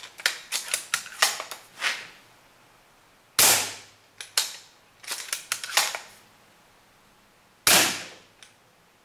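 Spring-powered airsoft M40 bolt-action sniper rifle with an upgraded piston spring fired twice through a chronograph, two sharp reports about four seconds apart. Before each shot comes a quick run of clicks and clacks as the bolt is worked to cock the spring and chamber a BB.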